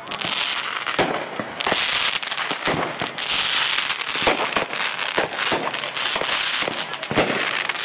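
Consumer aerial fireworks going off: a dense run of sharp bangs and pops over a steady crackling hiss.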